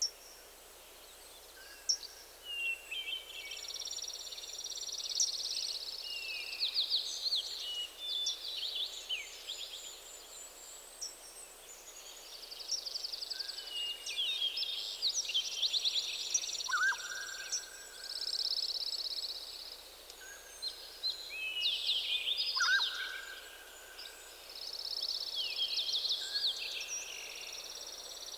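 Several songbirds singing together in a morning chorus: overlapping high, rapid trills and chirps, with a short lower whistled note coming in every few seconds.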